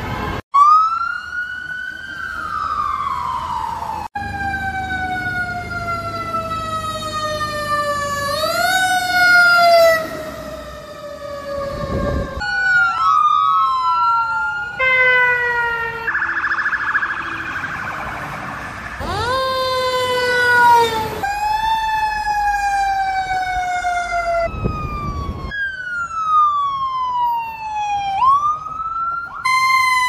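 A run of emergency-vehicle sirens, one after another, each a wail sliding slowly up and down in pitch, with abrupt cuts between them. An ambulance siren opens the sequence.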